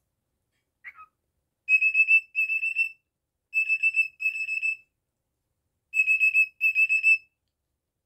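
Cockatiel mimicking an alarm clock: a short chirp about a second in, then three pairs of rapid beeping whistles, all on one steady high pitch.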